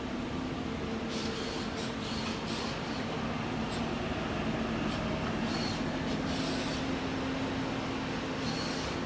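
Citizen L20E Swiss-type CNC lathe running with a steady machine hum, broken by several short hissing bursts.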